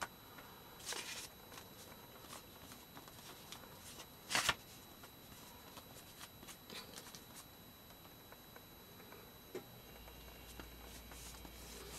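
Faint rustling and soft dabbing of a makeup sponge working acrylic paint on a paper book page and a plastic palette, with scattered small ticks and one brief louder rustle about four seconds in.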